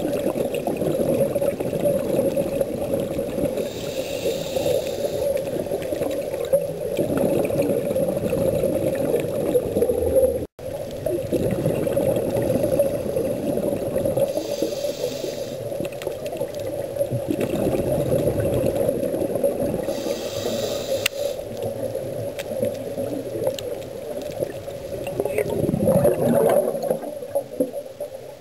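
Scuba diving underwater: a steady rush of water noise with a diver's regulator breathing, three short hisses of inhalation and a louder gurgle of exhaled bubbles near the end.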